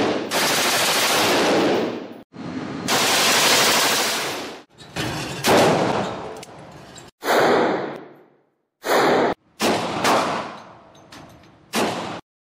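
Loud bursts of rapid gunfire, edited into blocks of a second or two that cut off abruptly, followed by a few shorter bursts near the end.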